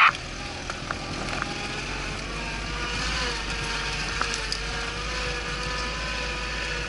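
Off-road vehicle engine running steadily while driving slowly, its pitch drifting slightly, with a sharp knock right at the start and a few small rattles and clicks.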